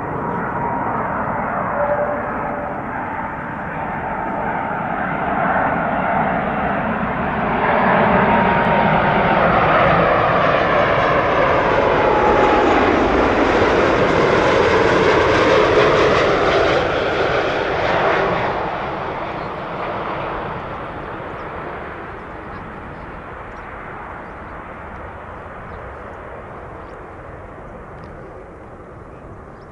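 Airbus A330 airliner's twin jet engines on final approach as it flies past low: a jet whine and rumble that grows, peaks with its pitch sweeping down as it passes, then fades into a distant rumble as it lands.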